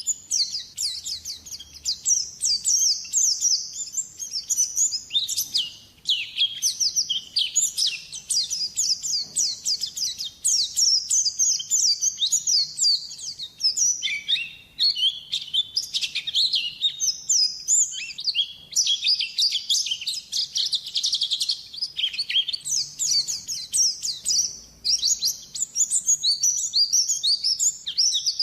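Pleci (white-eye) singing a long, rapid, high twittering song in near-continuous phrases, with brief breaks about six, fourteen and twenty-two seconds in.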